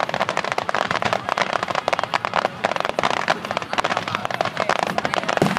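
Fireworks finale: a dense, continuous crackle of many small rapid pops, with a heavier bang near the end.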